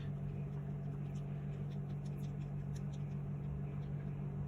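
A steady low background hum, with faint, scattered light clicks of a hex key working a tiny screw out of an airsoft pistol's metal trigger chassis.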